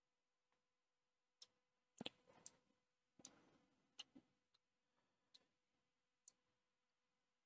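Faint clicking of a computer mouse and keyboard, about ten sharp, irregular clicks, a few in quick clusters, over a faint steady hum.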